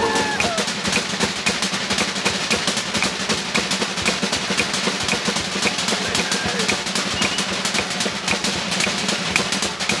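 Pacific Island dance drumming: a fast, steady, driving beat on snare drum and other drums.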